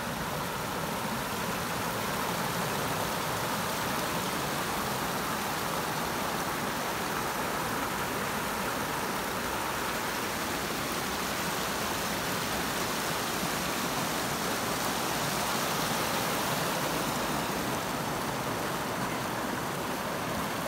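Floodwater of the Indus River rushing and spilling over a low stone wall and embankment in a steady, unbroken wash.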